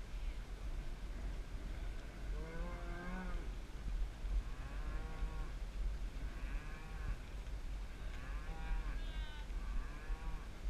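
Cattle mooing: about five drawn-out calls, one after another, over a steady low rumble.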